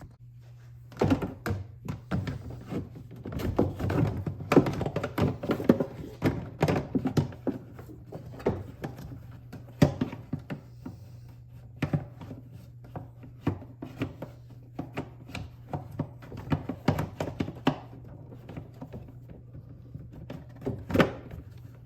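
Plastic knocks, clicks and scraping from a cabin air filter in its plastic frame being worked back into the filter housing, fitting with some difficulty. A dense run of knocks over the first several seconds, then scattered ones, with a sharp knock about ten seconds in and another near the end, over a steady low hum.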